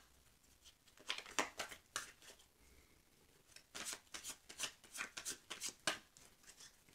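Rider-Waite tarot cards being shuffled by hand: two spells of quick, light card flicks, the first about a second in and the second starting near the middle, with a short pause between.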